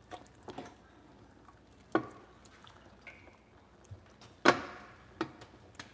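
Ladle knocking and clinking against a stainless stockpot and a bowl as soup is served, with a little liquid dripping: a handful of separate clinks, the loudest about four and a half seconds in.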